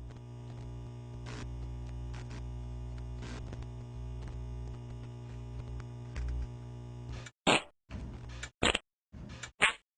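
A steady electrical-sounding hum with several fixed tones, cut off abruptly about seven seconds in. It is followed by a run of short, loud chopped audio snippets, each separated by dead silence: a stutter edit.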